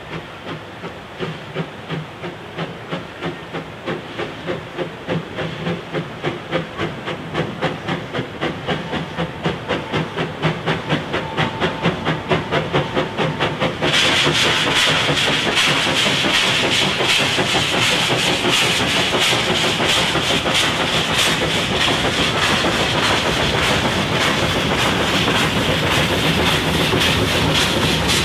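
NA class 2-6-2 narrow-gauge steam tank locomotive working a train, its exhaust chuffs quickening and growing louder as it approaches. About halfway a loud steady hiss of steam comes in as it passes close, with the beats still under it.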